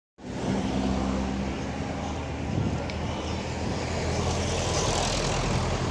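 Busy city street traffic: vehicle engines running steadily, with a large bus passing close by about four to five seconds in.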